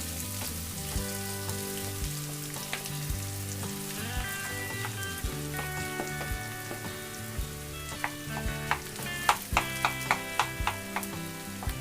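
Oil sizzling in an iron kadhai as mashed potato fries in it, with a spatula stirring and several sharp knocks of the spatula against the pan in the second half.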